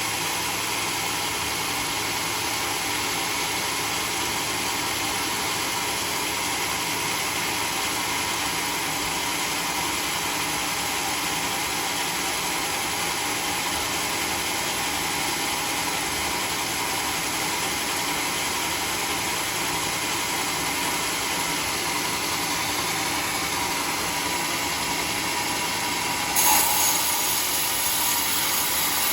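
Large sawmill bandsaw running steadily with no cut. About three seconds before the end the blade enters a teak log, and the sound jumps louder and higher as cutting begins.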